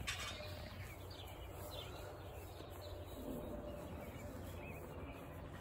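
Faint outdoor ambience: a few bird chirps over a low, steady rumble.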